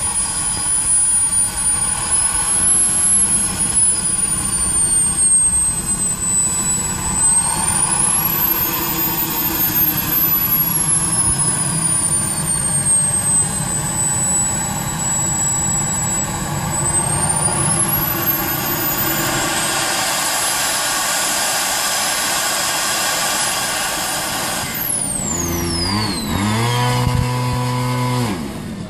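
K-210 jet turbine in a large RC F-86 Sabre running on the ground, its high whine rising and falling with throttle. About 24 seconds in, the whine falls away steeply as the turbine spools down. A lower humming tone then steps up and down.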